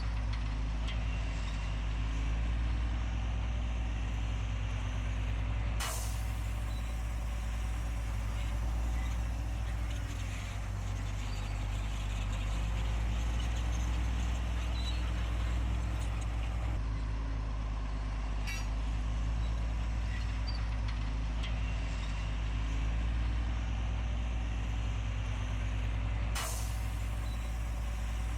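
Heavy construction machine's diesel engine running steadily with a deep low rumble, with a sharp click about six seconds in and another near the end.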